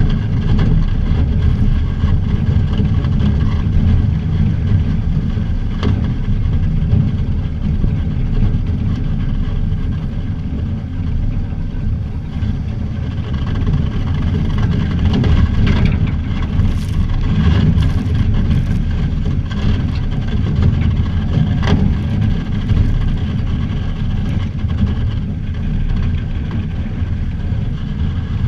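Truck driving on a snowy road, heard from a camera mounted on its hood: a steady low rumble of engine and wind noise, with a few faint clicks.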